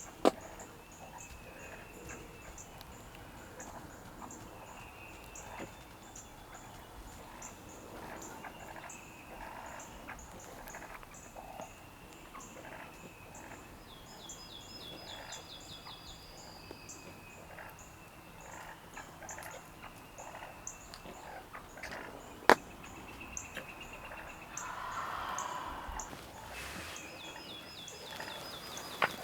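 Wild turkeys calling close by: a longbeard gobbler gobbling amid small birds chirping, with two sharp clicks, one right at the start and one about 22 seconds in.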